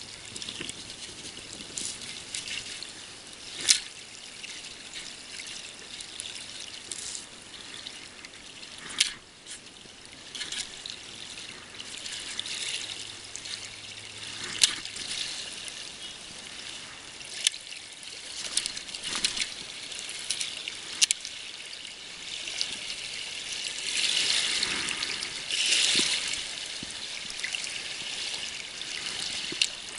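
Small waves lapping and splashing against a stony lakeshore, with a few sharp clicks and knocks scattered through; the splashing grows louder near the end.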